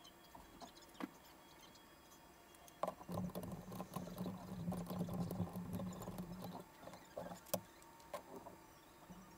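Faint scattered clicks and scratching of small hardware being handled inside an open PC case. A low steady hum joins for a few seconds in the middle.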